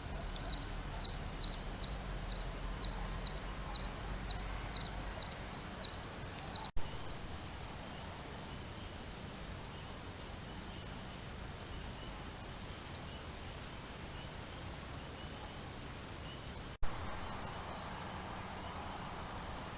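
Crickets chirping in an even rhythm, about two to three short high chirps a second, with a second, lower-pitched chirper alongside. Twice a brief click cuts the sound out for an instant.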